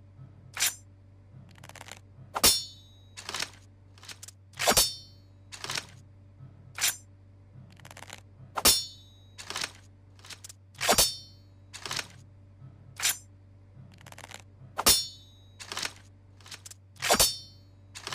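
Katana making a series of sharp metallic clanks and clicks, about one a second at uneven spacing, the louder ones with a short high ring.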